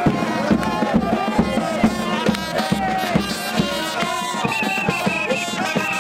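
Music with a steady beat of about two strokes a second under melodic lines.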